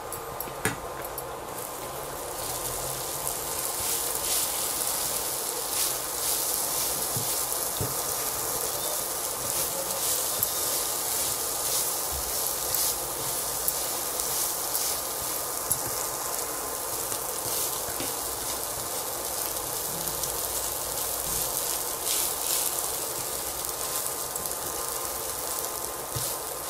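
Cooked rice sizzling in oil in a nonstick pan as a silicone spatula stirs and tosses it through the fried garlic tempering, a steady crackling hiss with light scraping ticks from the spatula.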